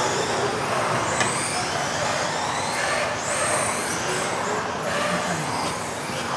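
Several electric RC off-road cars racing on a sports-hall floor: high motor whines rising and falling as they accelerate and slow, over a steady rush of tyre and drivetrain noise, echoing in the hall.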